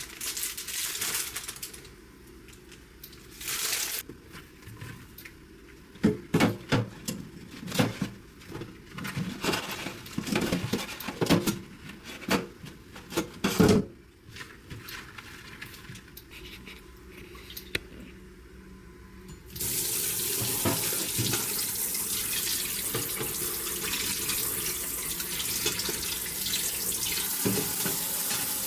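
Water running from a sink tap, in short bursts at first and then steadily for the last nine seconds or so, with a run of knocks and clatters in the middle.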